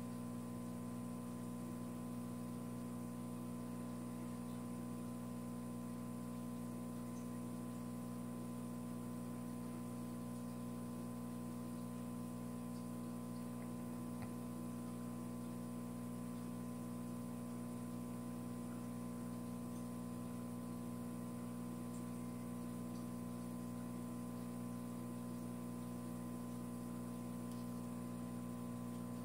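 Steady low electrical hum with a cluster of fainter steady tones above it, unchanging throughout, with a few faint ticks scattered through it.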